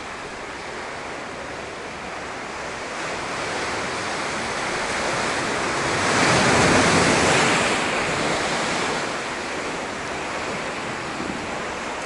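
Ocean waves surging into a sea cave: a steady wash of surf that swells to a peak about six to seven seconds in and then ebbs away.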